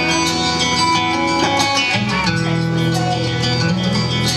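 Instrumental intro of a country song: guitars playing over a steady bass line, with no singing.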